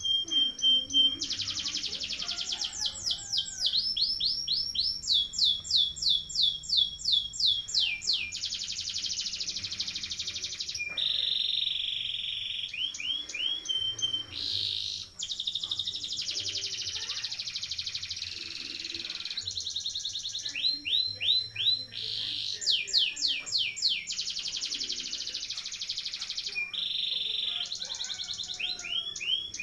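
Domestic canary singing a long rolling song. Runs of rapid, repeated falling notes, several a second, alternate with dense buzzy trills held for a few seconds at a time.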